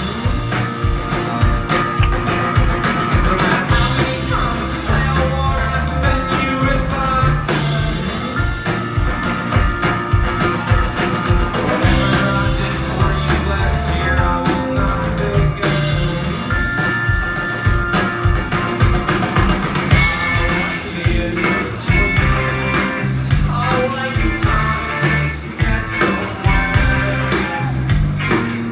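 A rock band playing live, with a steady drum beat under guitars and a sung vocal.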